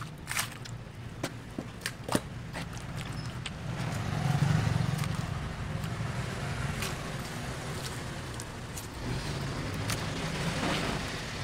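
A big knife cutting through ocean sunfish flesh on a wet wooden board, with sharp taps and knocks in the first couple of seconds. About four seconds in, a low steady rumble rises and keeps going, swelling again near the end.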